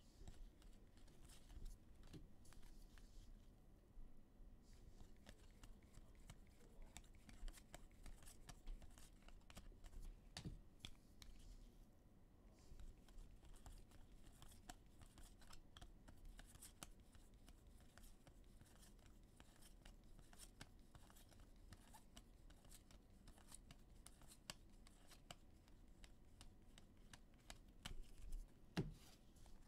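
Faint papery clicks and slides of a stack of cardboard football trading cards being thumbed through and sorted by hand, with a louder flurry of card handling near the end.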